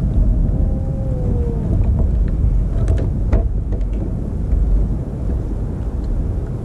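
Steady low rumble of wind buffeting an action camera's microphone over open sea water around a kayak, with a few light clicks and taps around the middle and a faint short whistling tone about half a second in.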